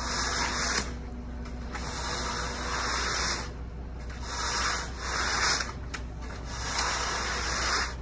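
Floats being pushed across wet concrete: a rough scraping that swells and fades in long strokes, about four of them, each a second or so long.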